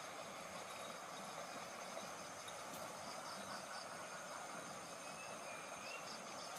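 Faint steady rush of flowing stream water, with night insects chirping in quick pulses, about four a second, in the second half. A thin wavering call starts near the end.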